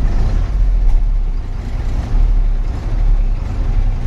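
Truck engine running at low speed, heard from inside the cab as a steady low hum.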